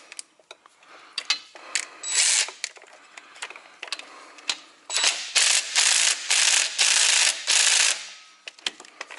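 Impact wrench hammering in short trigger bursts on the rusted A/C compressor mounting bolts: scattered clicks, one burst about two seconds in, then a run of about five bursts near the end.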